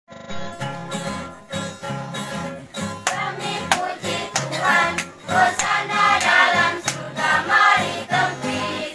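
Church choir singing to strummed acoustic guitars, with a steady strummed beat throughout. The voices swell and become much louder about three seconds in.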